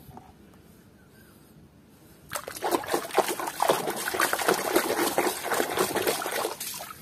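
Water splashing and trickling in a tub as a muddy plastic toy dinosaur is rubbed clean by hand, starting about two seconds in and going on in irregular splashes.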